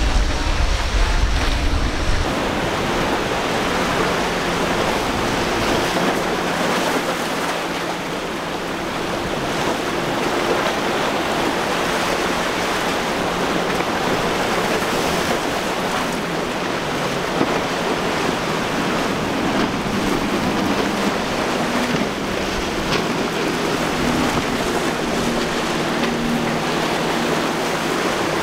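Steady wash of surf and choppy water with wind on the microphone, and a low steady drone of outboard boat engines running under it. A heavy low wind rumble drops away about two seconds in.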